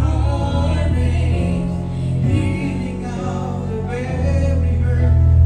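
A man and a woman singing a gospel song through handheld microphones over an instrumental accompaniment with steady bass notes.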